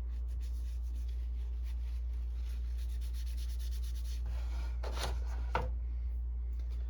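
An ink cartridge being wiped clean by hand: quick rubbing strokes, then two short sharp knocks about five seconds in, over a steady low hum.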